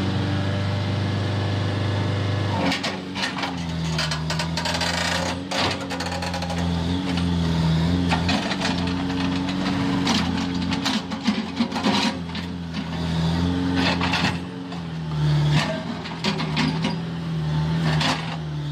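JCB backhoe loader's diesel engine running under load, its pitch stepping up and down as the machine works, with frequent sharp knocks and clanks of metal, soil and stones.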